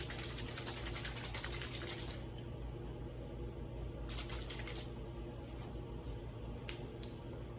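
Water sloshing and rattling inside a closed plastic snow globe being shaken to rinse off leftover instant-snow residue. The shaking stops after about two seconds, and a few brief, lighter handling sounds follow.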